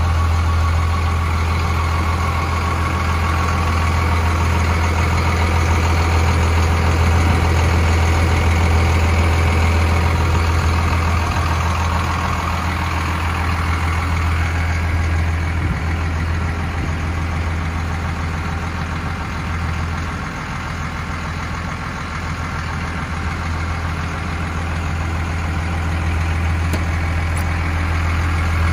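1991 Dodge D250 pickup's engine idling steadily, a low even hum that dips slightly in level about two-thirds of the way through.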